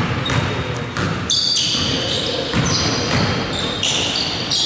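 Basketball bouncing on a hardwood gym court, a few separate thuds, with sneakers squeaking sharply on the floor in short high squeals from about a second in.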